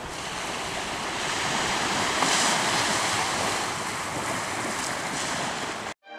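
Wind over a choppy, white-capped sea: a steady rushing of waves and wind that cuts off abruptly near the end.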